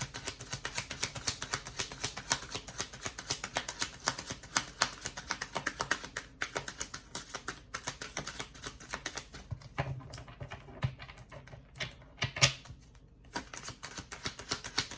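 A deck of tarot cards being shuffled by hand: a fast, steady run of crisp card clicks, with a louder knock and a brief pause about twelve seconds in before the shuffling resumes.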